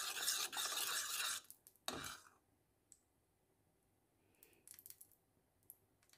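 Metal spoon stirring and scraping through thick sweet-and-sour plum sauce in a stainless steel pot. The scraping stops about a second and a half in, with one more short scrape near two seconds, then only a few faint clinks of the spoon.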